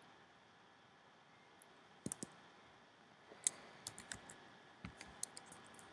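Computer keyboard keys and mouse buttons clicking: a quick cluster of three clicks about two seconds in, then scattered, irregular clicks. Faint steady hiss underneath.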